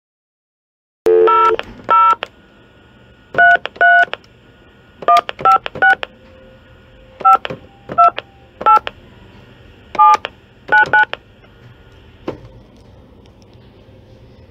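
Touch-tone phone keypad dialing a number: a series of about a dozen short dual-tone DTMF beeps in irregular groups, over a faint steady line hum, with a single click near the end.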